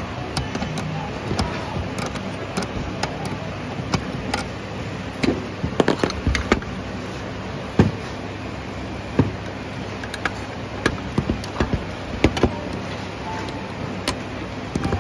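Scattered clicks and knocks from hands handling the fittings, wires and connectors of a fog machine's pump and its metal housing, over a steady background hum.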